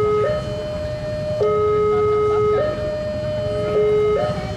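Railway level-crossing warning siren sounding a two-tone hi-lo alarm, each tone held about a second, signalling an approaching train. A low rumble runs underneath.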